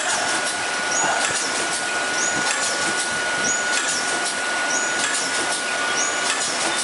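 Multi-track pouch packaging machine running: a steady mechanical noise with a constant high tone, and a repeating cycle of clicks with a short high-pitched sound about once every 1.3 seconds.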